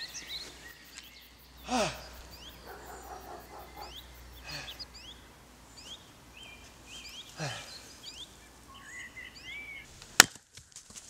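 Small birds chirping with short, quick downward-sliding calls throughout, and three swishes a few seconds apart. About ten seconds in comes one sharp axe blow into wood, the loudest sound.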